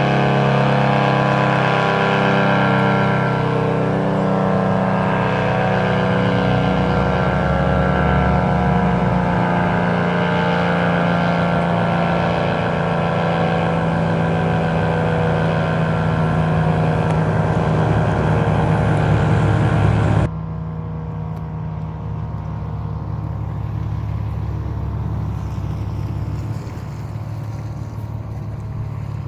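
ACA Cyclone 125 outdoor warning siren sounding a steady tone, a loud chord of several pitches wavering slightly. About twenty seconds in, the sound abruptly becomes quieter and duller.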